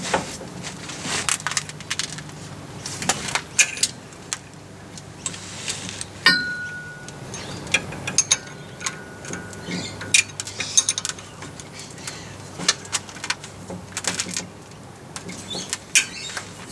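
Hand tools clinking and knocking against metal parts in irregular short clicks, with one ringing metallic ping about six seconds in, over a low steady hum.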